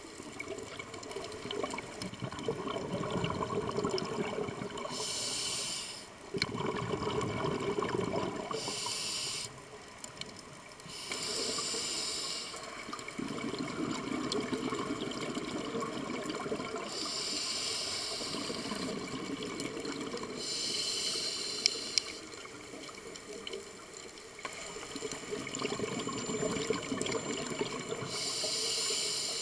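Scuba regulator breathing, heard through an underwater camera housing: short hissing inhales every few seconds, six in all, alternating with longer stretches of bubbling exhaust.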